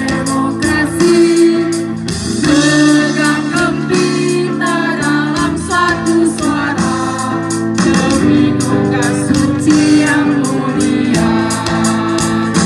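A group of protesters singing together to a strummed guitar, the strums steady and rhythmic under the voices.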